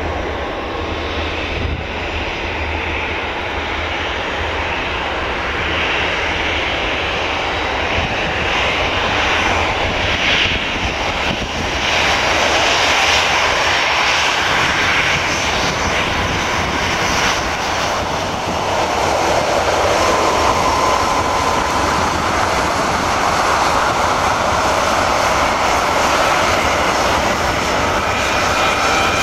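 Airbus A319-111's twin CFM56 turbofan engines running as the airliner taxis past, growing steadily louder as it approaches. A higher fan whine comes through during the second half.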